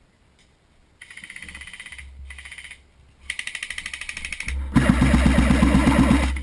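Airsoft guns firing on full auto: long bursts of rapid, evenly spaced shots that start about a second in, pause briefly, then resume and get much louder near the five-second mark.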